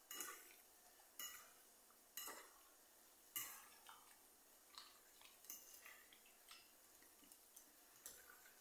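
Faint clinks and scrapes of a metal fork against a plate as raw pork steaks are stirred in their seasoning, a few sharp strokes about a second apart, then softer ones.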